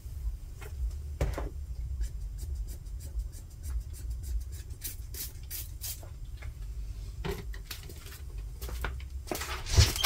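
Scattered light clicks and taps of hand work on a small generator's open carburetor and parts, with one louder knock near the end.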